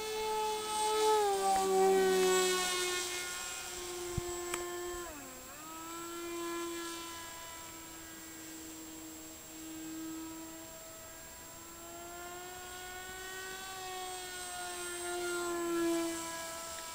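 ParkZone F-27C Stryker radio-controlled flying wing's electric motor and pusher propeller whining as it flies overhead. The pitch slowly rises and falls, with a sharp swoop down and back up about five seconds in.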